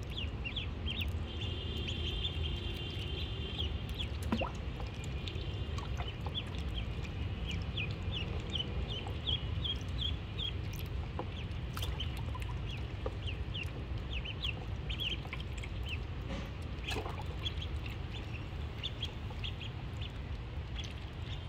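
Ducklings peeping: many short, high peeps overlapping several times a second, with a longer held peep about two seconds in, over a steady low rumble.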